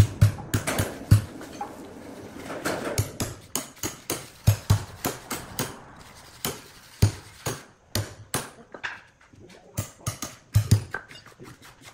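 Hammer blows driving bent steel spikes into a large log and its wooden blocks to brace it on the sawmill carriage: sharp, irregular strikes, often two or three in quick succession.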